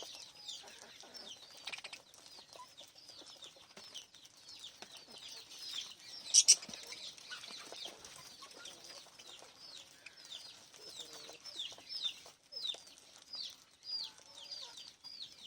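A group of small pet parrots chirping continuously in quick, short, falling chirps, with one louder call about six seconds in.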